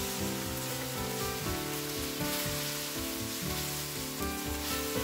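Sliced vegetables sizzling in hot oil in a wok as they are stirred with a wooden spatula, with soft background music underneath.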